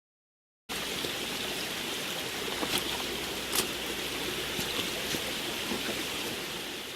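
Steady rush of running water, with a couple of faint clicks; it fades out near the end.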